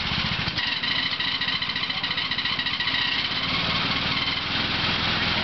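John Deere riding lawn tractor's engine running steadily. About half a second in its note shifts and a higher whine comes in, fading out again a little after the middle.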